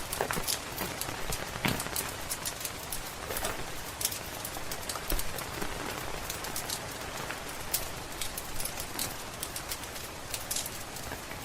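Steady rain patter with frequent sharp, irregular crackles and pops from a wood fire in a fireplace.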